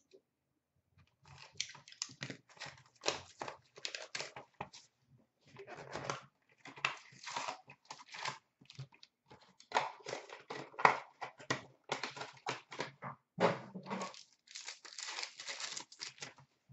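Clear plastic shrink-wrap being torn off a hockey card box and crinkled in the hands, then the box opened and its packs handled. It is an irregular run of crackling and tearing rustles, with a few louder crackles in the second half.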